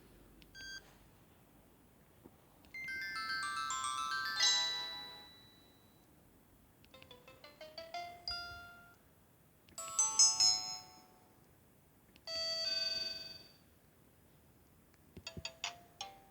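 Samsung SGH-X210 mobile phone playing short preset ringtone and alert jingles through its small speaker, four brief melodies of quick notes one after another with pauses between them. A row of short keypad beeps comes near the end.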